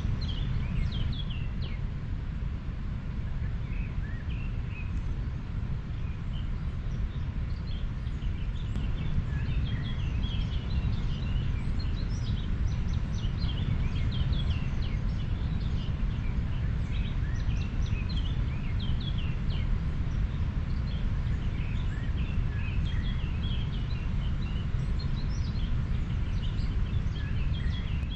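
Flowing river water making a steady low rush, with many short, high bird chirps scattered over it.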